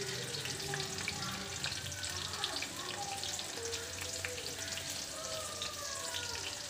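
Battered mushroom pieces deep-frying in hot oil in a kadai: a steady sizzle thick with small crackling pops.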